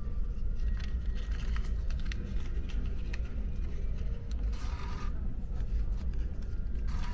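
Vending machine's bill acceptor taking in 1000-yen notes, with short mechanical clicks and a brief whirr, the notes rustling in the hand. Under it all runs the steady low drone of the ferry's engines.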